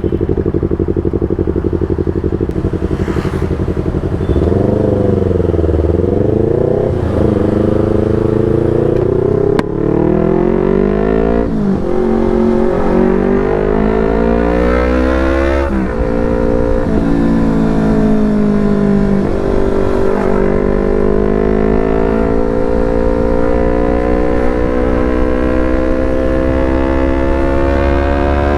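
Yamaha R25's parallel-twin engine through a Proliner TR1R short aftermarket exhaust, ridden. It runs steady for a few seconds, then accelerates through the gears with upshifts about 11 and 16 seconds in, eases off briefly, and builds revs slowly to the end.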